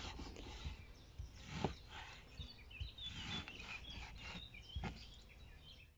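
Kitchen knife cutting through raw meat on a wooden cutting board, with soft knocks now and then as the blade meets the board. Faint birdsong chirps in the background.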